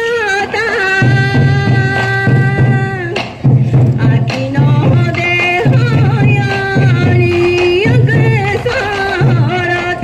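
Sansa odori folk dance music: a high, ornamented melody of held, wavering notes over a low accompaniment that pulses in short blocks, dropping out briefly a little after three seconds in, where a few sharp drum strikes sound.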